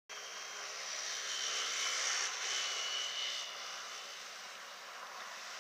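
Airbus A330-200 twin jet engines running as the airliner lines up on the runway for takeoff: a steady rush with a high-pitched whine on top.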